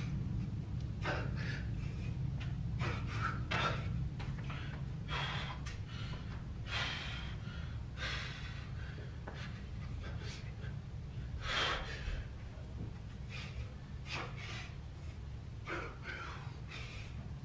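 A man's heavy, irregular panting and gasping breaths while he does and rests between sets of pull-ups, out of breath from the exertion. A steady low hum runs underneath.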